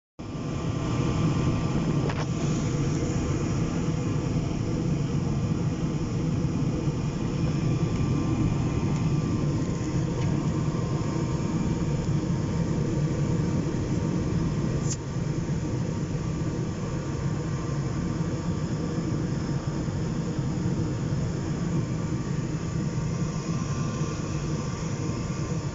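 Furnace burners firing: a steady, even rush of flame noise that stays constant throughout, with a faint steady hum above it and a single brief click about fifteen seconds in.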